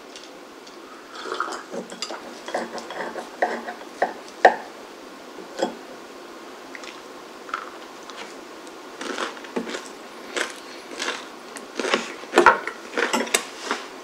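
Table knife and fork cutting through an open sandwich on thick whole-wheat bread on a ceramic plate: scraping of the blade through the bread and scattered clinks of metal on the plate.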